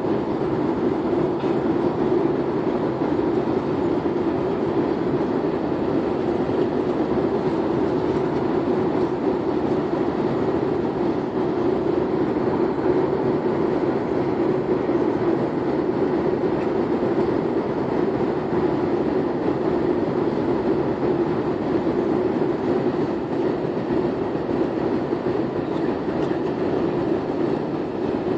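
Steady noise of engines and rushing air inside an airliner cabin in flight, an even low hum with no changes.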